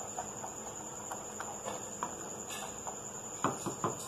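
Chana dal simmering in water in a pan, with scattered soft bubbling pops and two louder knocks near the end, over a steady high-pitched whine.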